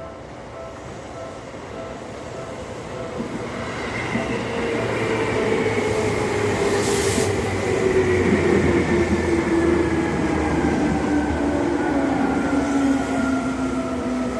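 Seibu Railway electric train approaching a level crossing, growing louder for the first several seconds. Its motor whine slides steadily down in pitch, over a low rumble, with a short hiss about seven seconds in. The crossing's warning bell keeps dinging underneath.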